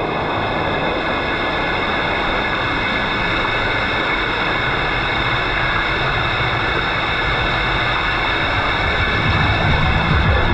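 Steady loud rush of water and noise inside an enclosed tube water slide, mixed with the slide's Formula 1 race-car sound effect played through its speakers. A deep low rumble swells in about nine seconds in.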